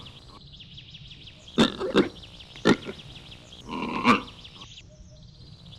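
An animal's short calls: three quick sharp ones, then a longer one about four seconds in, over a steady high buzzing background.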